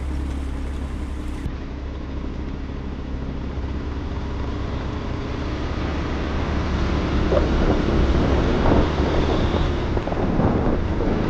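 Motorcycle engine running at low speed, with wind buffeting the camera microphone and growing louder from about six seconds in as the bike picks up speed.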